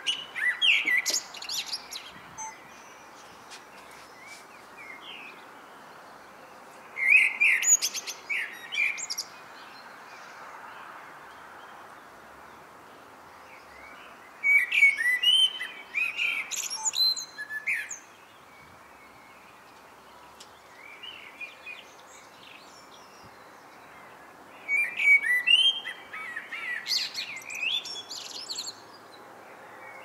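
Male common blackbird singing: fluting phrases of a few seconds each that end in a high, scratchy twitter, delivered one after another with pauses of several seconds between them.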